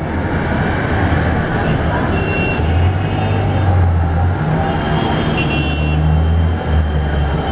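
Boeing 747-400's four jet engines on final approach with landing gear down, a loud steady rumble with a faint high whine.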